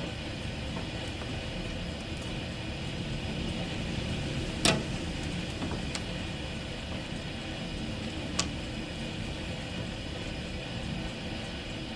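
Heavy rain falling steadily, with a deep constant rumble underneath. A few sharp taps of single drops sound close by, the loudest a little under five seconds in.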